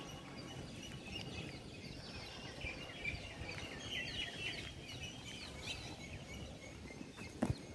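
Birds chirping in a quick run of short, falling calls over a low background rumble, with one sharp knock near the end.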